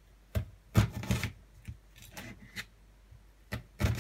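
Kitchen knife slicing an onion on a plastic cutting board: several uneven knife strikes on the board, with the loudest chop near the end.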